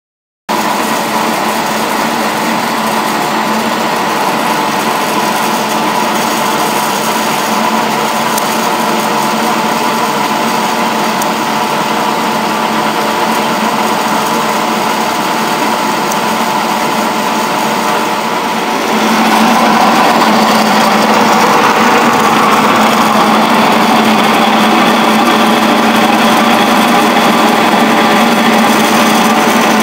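7.5 kW electric pellet mill running steadily, pressing rye straw mixed with spruce sawdust into pellets, with a constant hum. It starts abruptly just after the opening and grows louder about two-thirds of the way through.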